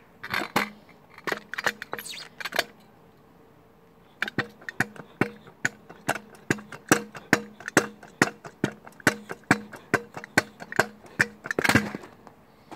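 Stunt scooter hopped pogo-stick style, standing upright on its back wheel: a few knocks, a short lull, then a steady run of sharp knocks, about two or three a second, as the scooter lands with each bounce.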